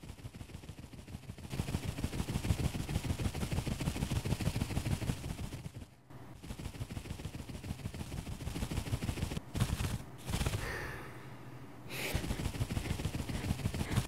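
Cartoon sound effect of a bee flying: its wings make a fast fluttering rattle. About ten seconds in there is a drawn-out breathy hiss, like a tired puff of breath.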